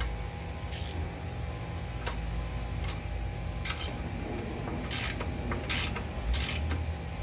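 Socket ratchet being worked on a nut in short strokes, giving several separate ratcheting rasps about a second apart, over a steady background hum.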